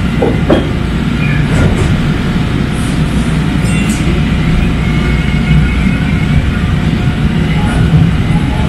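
Kinki Sharyo SLRV light rail car running on its track, heard from inside the car as it pulls away along an elevated station platform: a steady low rumble with a faint higher whine here and there.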